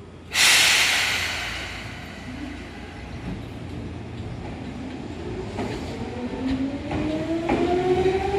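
Seibu 2000 series electric train pulling away: a sudden burst of air hiss just after the start fades over a couple of seconds, then the traction motor whine rises steadily in pitch as the train picks up speed, with a few wheel clicks near the end.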